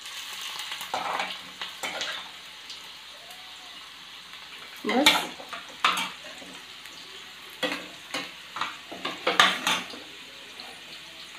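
Onion, carrot and capsicum sizzling in oil in metal kadhais, with metal spatulas scraping and clinking against the pans as they are stirred. The loudest scrapes come about five seconds in and again near the end.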